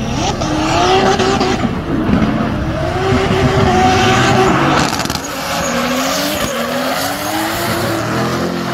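Drift car engine held at high revs, its pitch wavering, with tyres squealing and skidding under it. About five seconds in the revs fall, then climb again in short rises.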